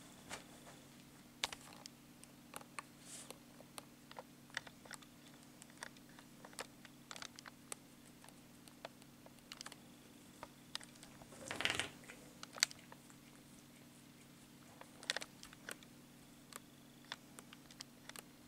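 Scattered light clicks and taps at an irregular pace, with a short cluster of louder ones about twelve seconds in, over a steady low hum.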